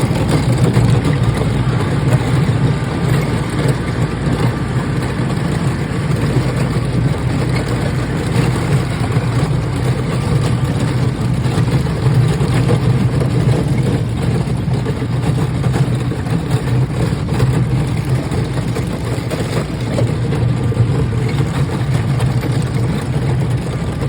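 Tractor engine running steadily at an even speed, a low continuous drone with no change in pitch.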